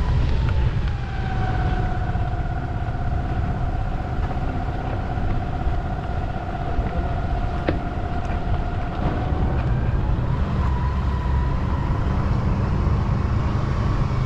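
Vehicle engine running at a steady road speed, with heavy wind rumble on the microphone. Its whine drops in pitch about a second in, holds steady, and rises again a little after about ten seconds.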